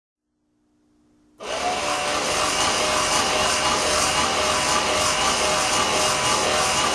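Linen bus destination rollsign being wound through its route exposures, the sign and its rollers giving a steady mechanical running and rubbing noise that starts abruptly about a second and a half in.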